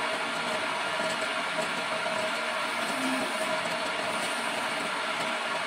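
Homemade electric-motor wood lathe running steadily with a hand chisel scraping and cutting the spinning wooden baluster, a continuous even hiss with a faint steady hum.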